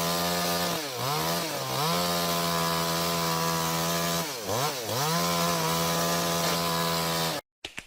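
Chainsaw engine running at high revs. Its pitch dips sharply and recovers twice in quick succession about a second in, and again twice just past the middle. The sound cuts off abruptly near the end.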